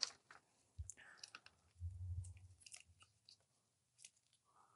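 Faint crinkling and clicking of plastic packaging and clear plastic infusion tubing being handled, with a dull bump about two seconds in.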